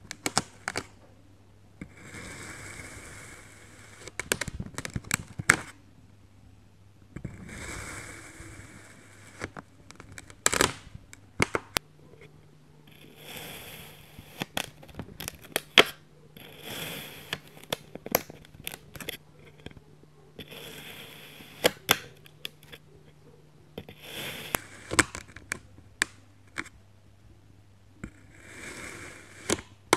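A knife slicing through a dome of kinetic sand, cut after cut about every three to four seconds. Each cut is a crunchy, scraping hiss lasting a second or so, followed by a quick cluster of sharp clicks, over a faint steady hum.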